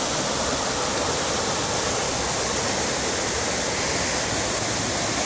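Rain-swollen creek rushing out of a culvert's pipes, a steady loud roar of fast-flowing floodwater.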